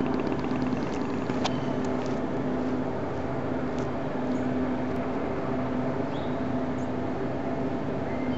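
A 1955 Chevy wagon's 360 small-block V8 idling steadily.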